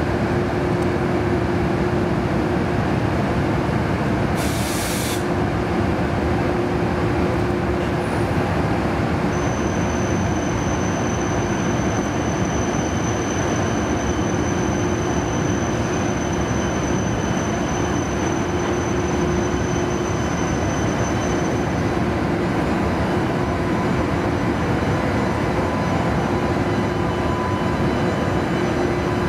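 Freight train of tank wagons rolling slowly over the rails as it draws in to stop, a steady rumble throughout. A short hiss comes about four seconds in, and a thin high squeal runs from about ten seconds in until it fades around twenty-two seconds.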